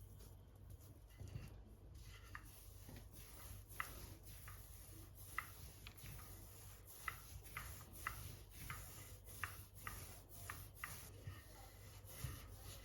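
A run of faint, irregular clicks and light taps, roughly one or two a second, over a low steady hum.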